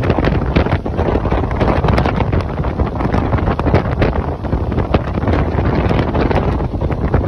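Wind buffeting the microphone aboard a motorboat under way: a loud steady rush with many sharp gusty pops, the boat's running noise underneath.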